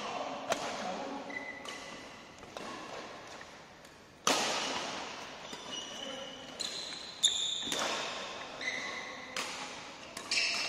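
Badminton rackets striking a shuttlecock in a fast rally: a series of sharp cracks at uneven intervals, ringing in the hall, with hard hits about 4 and 7 seconds in. Short high squeaks from players' shoes on the court floor come between the hits.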